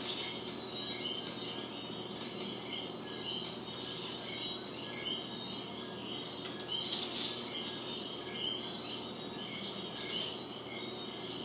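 A small dog scrabbling and pouncing on a hard tiled floor while batting an air-filled balloon about, with scattered scuffs, rustles and light bumps, the loudest about seven seconds in. A faint, high chirp repeats steadily in the background.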